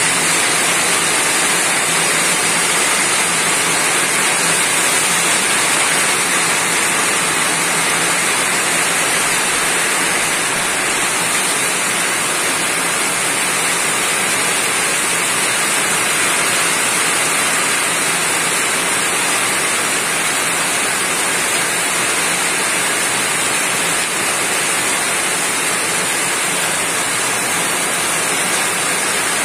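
Steady rain falling on a roof: an even, unbroken hiss of drops with no let-up.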